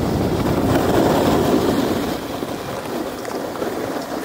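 Snowboard sliding over packed groomed snow: a steady scraping rumble that eases slightly about halfway through.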